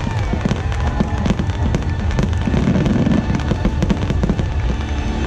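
A dense run of fireworks bangs and crackles, one after another, over the show's music soundtrack.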